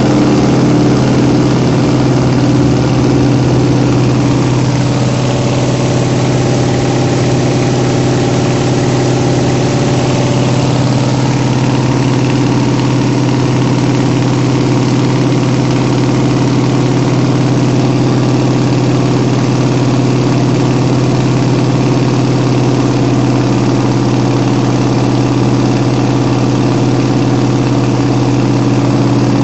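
Small plane's piston engine and propeller droning steadily, heard from inside the cabin.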